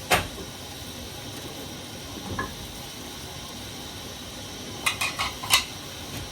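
Onions frying in hot oil in a cooking pot, with a steady sizzle; a metal spoon knocks against the pot once at the start and then several times in quick succession about five seconds in as the onions are stirred.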